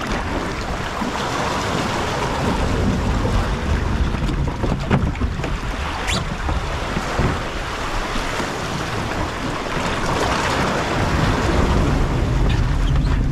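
Sea swell washing and surging around shoreline rocks, with wind buffeting the microphone. A couple of sharp knocks or splashes stand out near the middle.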